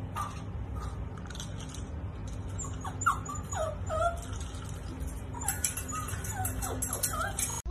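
Shiba Inu dogs whimpering in short, falling whines: one near the start, a few in the middle and more near the end. Light clicks and rattles come near the end as the puppy paws at a metal pet gate.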